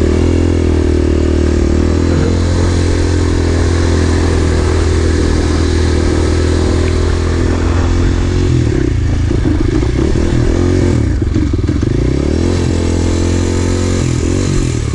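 A vehicle engine running loudly and steadily, its note turning uneven and wavering about eight seconds in before settling again near the end.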